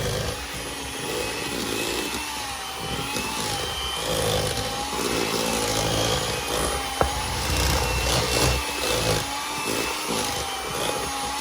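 Electric mixer running in a bowl of butter and sugar, creaming them together. The motor whine wavers slightly in pitch as the load changes, and there is one sharp click about seven seconds in.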